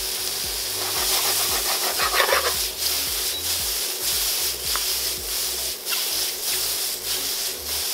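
Onions, mushrooms, tomatoes and zucchini noodles sizzling in oil in a stainless steel pan on high heat: a steady hiss with scattered sharp clicks as the pan is tossed.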